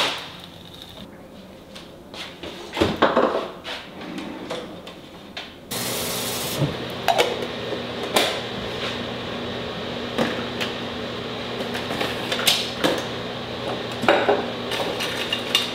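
Glasses and dishes clinking and knocking as they are handled at a kitchen sink and wire dish rack. About six seconds in, a steady hiss with a low hum starts suddenly and runs on beneath the clinks.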